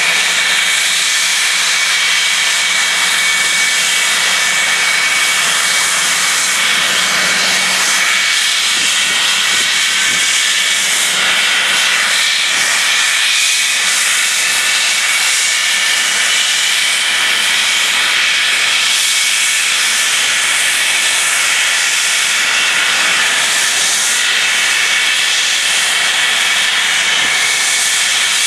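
English Electric Lightning F6 jets' Rolls-Royce Avon turbojets running on the ground at idle: a steady high whine over a loud hiss, the whine rising slightly in pitch in the second half.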